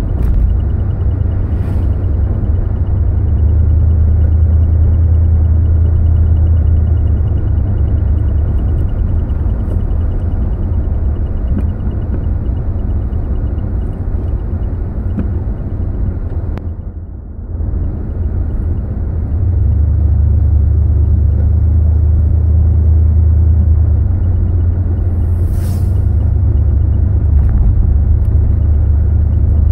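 Car engine and road noise heard from inside the cabin while driving: a steady low rumble that drops away briefly about 17 seconds in, then returns.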